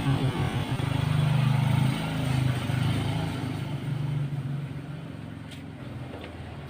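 A low engine hum that swells about a second in and then slowly fades.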